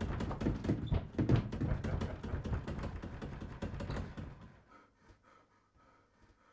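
A door rattled and knocked in a fast clatter of sharp knocks, several a second, for about four seconds. Then it dies away, leaving a faint repeating tone.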